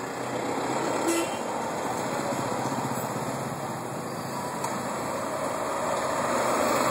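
Street traffic passing close: motorcycle and autorickshaw engines running with tyre noise as they go by, getting louder toward the end. A short sharp click about a second in.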